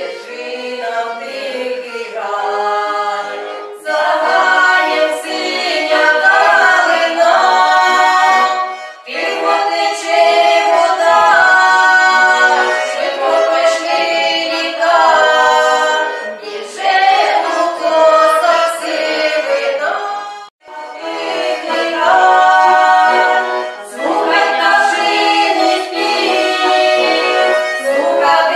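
Women's voices singing a song together in long phrases, with short breaks between phrases about 4, 9 and 20 seconds in.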